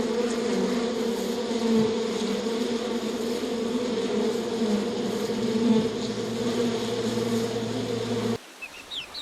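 Bees buzzing in a steady, continuous drone. It cuts off suddenly about eight seconds in, and quieter short, high chirps follow.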